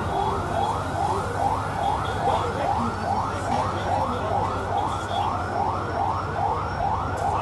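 A vehicle siren sounding a fast, evenly repeating rising sweep, about three sweeps a second.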